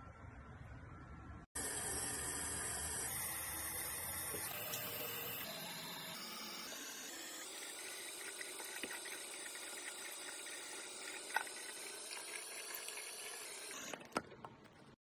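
Tap water running into a bathroom sink while a face is rinsed. The water starts suddenly about a second and a half in, changes character abruptly a few times, and stops shortly before the end.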